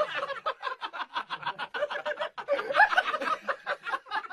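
A person laughing in a long run of quick, evenly repeated ha-ha sounds, about five or six a second.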